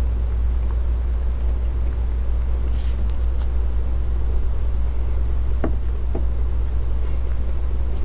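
Steady low rumble in the room, with two faint clicks about two-thirds of the way through.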